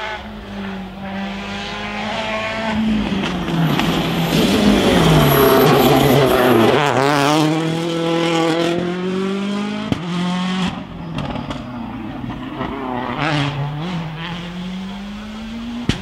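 A Citroën C4 rally car's engine coming through a hairpin. It is loudest in the middle as the car brakes and its pitch falls to a low point. It then revs up and pulls away through several gear changes, with a sharp crack about ten seconds in.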